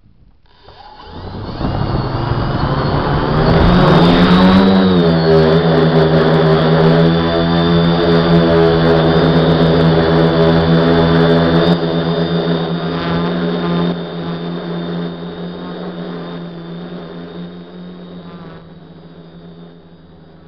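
DJI F450 Flame Wheel quadcopter's four brushless motors and propellers spinning up from rest for take-off, rising in pitch over the first few seconds and then running at a steady pitch with a thin high whine over the hum. The sound slowly gets quieter through the second half.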